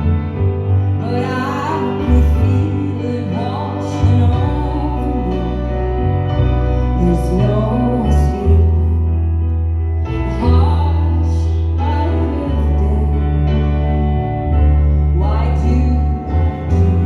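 Live folk song: a voice singing in slow phrases over held low instrumental notes.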